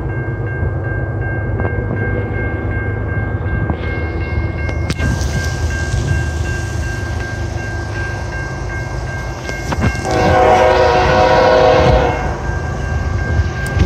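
Approaching diesel freight train with a steady low rumble, then the lead locomotive's horn sounds one long chord of about two seconds, roughly ten seconds in.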